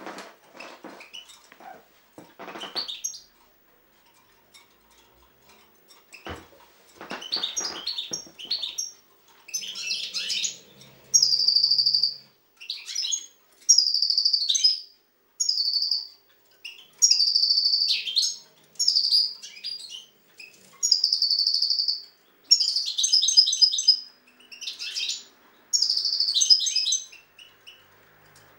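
European goldfinch singing: bursts of high, rapid twittering, each phrase about a second long, repeated with short pauses. The song is quieter and sporadic at first and settles into steady phrases about a third of the way in.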